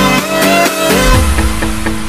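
Loud dance music: a melody with sliding notes, changing about halfway through to a steady low note under a quick ticking beat.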